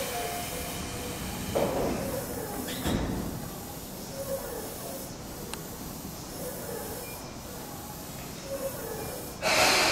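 Commuter electric train standing at the platform: its sliding doors shut with a thud about three seconds in, and near the end a sudden loud hiss of air starts.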